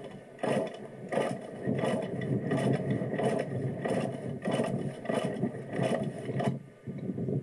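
Dirt bike being worked in place: a regular run of about ten mechanical, scraping strokes, roughly every two-thirds of a second, over a steady low sound. The strokes stop about six and a half seconds in.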